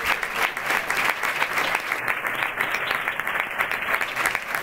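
Audience applauding steadily: many hands clapping at once in a hall.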